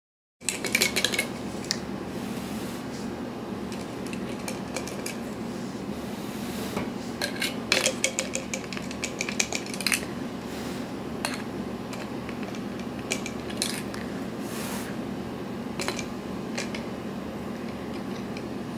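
Light clinks and clicks in short clusters, spaced irregularly, over a steady low hum.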